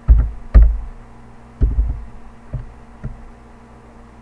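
Dull, bass-heavy thuds of computer keyboard keys being pressed, about five of them at uneven spacing. The two loudest come in the first second and the rest are weaker, over a faint low hum.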